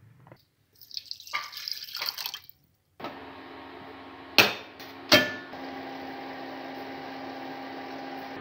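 Milky tea boiling in a steel pot on an induction cooktop: a steady bubbling hiss with a low hum under it. Twice, about four and five seconds in, steel clinks sharply against steel. A short hissing noise comes in the first seconds, before the bubbling starts.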